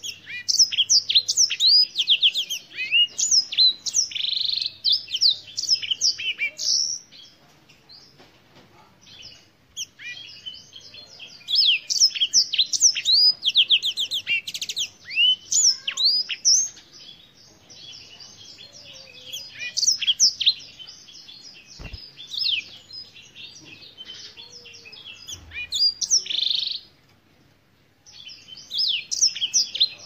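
Black-throated canary singing: rapid high trills and quick sweeping whistles run together in long phrases. Two long bursts of song are followed by shorter ones, with pauses between.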